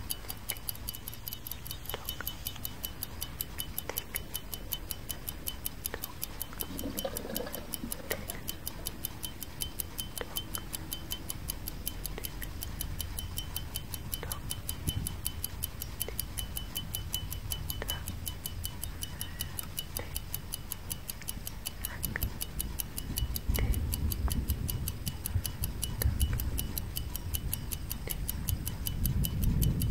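Clock tick-tock sound effect ticking steadily and evenly, with a stronger click about every two seconds. A low rumble builds under it over the last few seconds.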